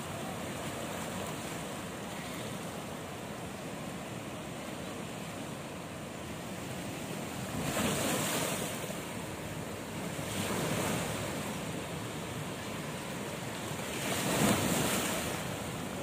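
Ocean surf washing over and between rocks on a rocky shore: a steady wash of water with three waves surging up and breaking on the rocks, about halfway through, a few seconds later, and loudest near the end.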